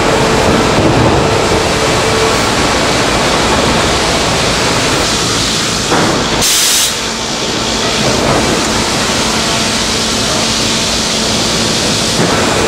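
Loud, steady running of a sawmill timber profiling line, its cutter heads machining a squared timber beam as it is fed through, with a short hiss about six and a half seconds in.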